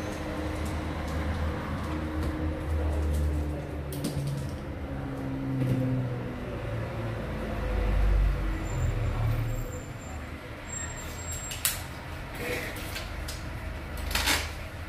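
A low, steady mechanical rumble with shifting low tones, and a few sharp clicks in the second half, as of a phone or tools being handled on a workbench.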